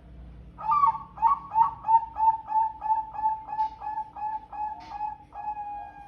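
Zebra dove (perkutut) cooing: a quick run of about fifteen short, evenly spaced notes, about three a second, closing in one longer held note near the end.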